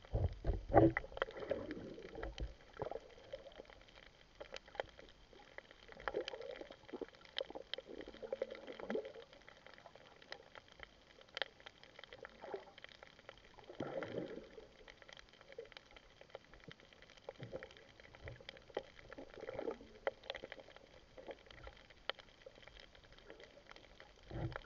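Underwater water noise from a moving camera: irregular bouts of sloshing and bubbling every few seconds, with scattered small clicks.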